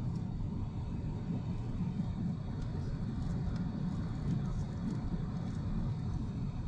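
Boeing 777-300ER economy cabin noise in cruise: a steady low rumble of airflow and engines, with a few faint light clicks.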